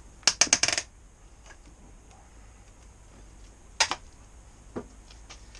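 Ratchet clicking: a quick run of about eight sharp clicks in the first second, then a single click a few seconds later and a fainter one after it.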